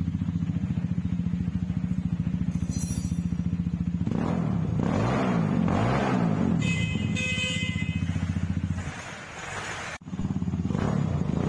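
Benelli Motobi 200 EFI motorcycle with its open 'brong' exhaust, its single-cylinder engine running with a steady pulse. About four seconds in it is revved up and down. The note dips a little before ten seconds, then the engine carries on.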